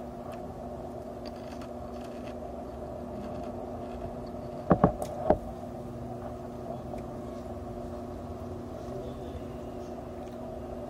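A steady electric hum with several held tones. About five seconds in, three or four sharp clacks of ceramic tableware as the small bowl and chopsticks are set down on the table.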